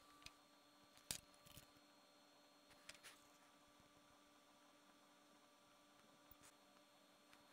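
Near silence: a faint steady electrical hum, with a few soft clicks, the sharpest about a second in.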